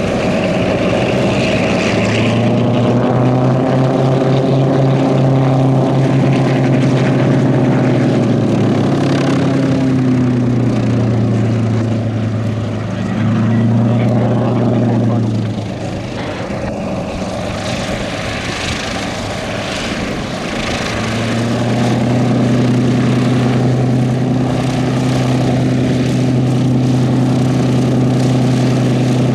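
The twin Allison V-12 engines of a Lockheed P-38L Lightning running at taxi power, a deep steady drone. It eases off briefly in the middle, drops lower for a few seconds, then picks up again.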